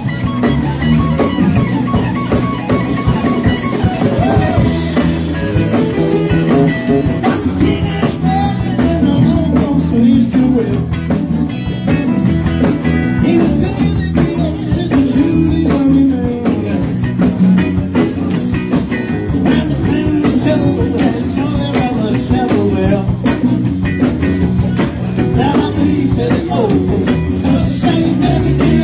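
Live rock band playing a bluesy number, with electric guitar, bass and drums.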